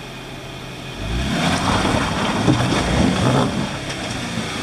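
Jeep Wrangler JK engine idling, then revving hard about a second in as it attacks a rocky ledge, with tires scrabbling over rock; the front tire is slipping on a rock. It eases off again after a couple of seconds.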